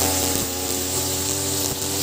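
Ogawa BG330 33cc two-stroke brush cutter running steadily at high throttle, its spinning 2.4 mm square nylon line cutting short grass, with a high whirring hiss over the engine note.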